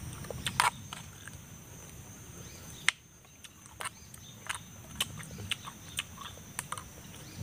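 Close-up chewing of crunchy raw green papaya: irregular sharp crunches and wet mouth clicks.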